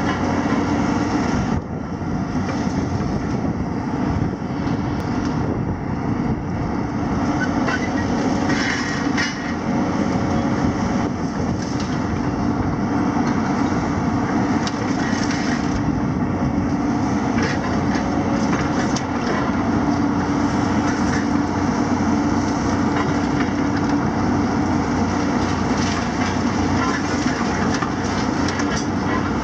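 Diesel engines of two tracked demolition excavators, a Hitachi and a JCB, running steadily under working load, with scattered clanks and crunches as their demolition jaws break and drag concrete and metal debris.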